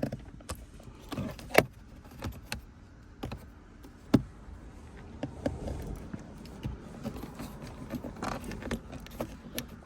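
Plastic center-console trim around a car's shifter being pried and worked loose: scattered clicks, knocks and small rattles, with two sharper snaps about one and a half and four seconds in.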